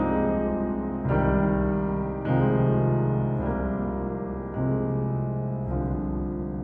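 Piano music: slow, sustained chords, a new chord struck about every second and left to ring.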